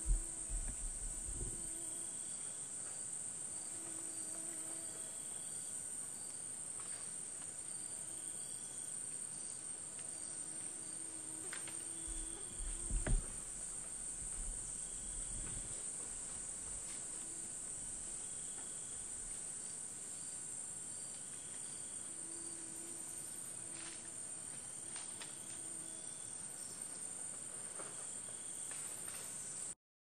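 Rainforest insect chorus: a steady high-pitched buzz, with a short call repeating about every two seconds from another animal and a couple of low thumps, at the start and about thirteen seconds in. It cuts off suddenly just before the end.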